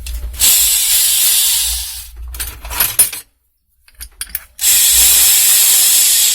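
Cordless drill/driver running in two loud bursts of a second and a half or more each, with a few sharp clicks in between.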